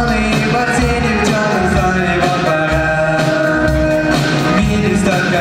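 A rock-style pop song by a Soviet vocal-instrumental ensemble playing, with a steady beat under long held melody notes.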